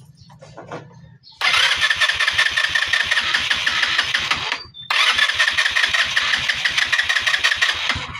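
Motorcycle's electric starter cranking the engine in two attempts of about three seconds each, with a short pause between them; the engine does not catch. It is hard starting, which the mechanic puts down to a carbon-fouled spark plug on this smoky engine.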